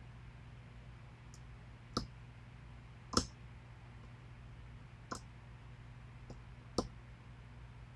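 Sharp metallic clicks from a pick and tension tool working the pins of a pin-tumbler challenge lock, four distinct clicks a second or two apart with fainter ticks between, as pins are set during picking.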